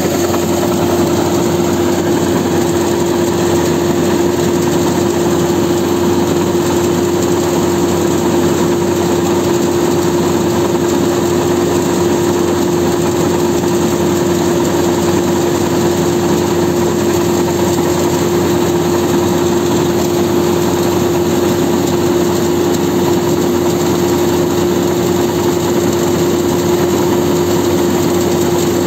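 Combine harvester running steadily while its unloading auger pours threshed paddy rice onto a heap: an even engine hum with one constant tone, over the rush of falling grain.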